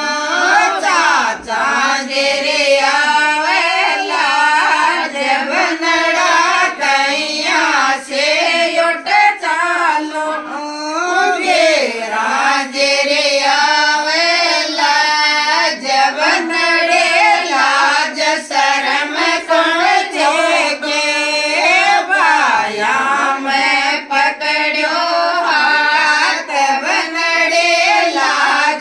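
A group of women singing a Shekhawati banna-banni wedding folk song together.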